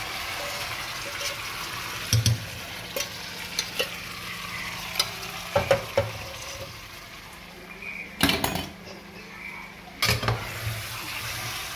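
Chicken frying in a pan for curry, with a steady sizzle. A utensil stirring it knocks and scrapes against the pan at irregular moments.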